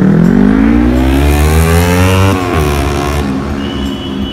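A motor vehicle's engine accelerating, its pitch climbing steadily for about two seconds, then dropping sharply at a gear change before pulling on at a lower pitch.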